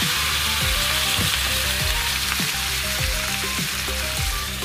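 Whole prawns frying in a wok of hot fat and minced garlic: a steady, dense sizzling hiss.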